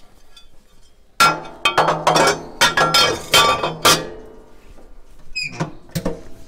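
Metal parts of a pellet stove clanking and clinking as they are refitted, the burner and stainless-steel flame deflector set back in place, in a quick run of about ten ringing clanks. A few softer knocks follow near the end.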